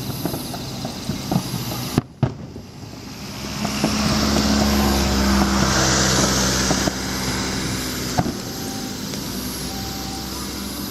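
Fireworks display: scattered pops and a sharp bang about two seconds in, then a swelling rush of many shells launching and bursting that holds loud for a few seconds and eases off. Steady tones of the accompanying music run underneath.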